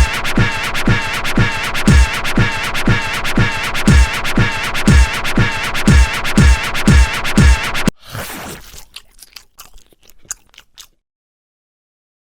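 Strange-sounding cartoon railroad crossing alarm: a crunchy, repeated sound about two times a second, each stroke falling in pitch. After about eight seconds it breaks up into scattered clicks and stops about a second before the end.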